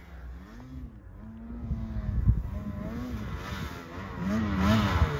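Snowmobile engine revving in repeated rising-and-falling surges as the sled plows through deep powder, growing much louder as it comes close.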